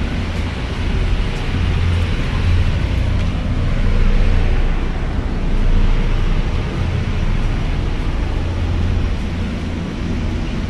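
Steady low drone of a fast catamaran ferry's engines heard inside the passenger cabin, with an even hiss over it.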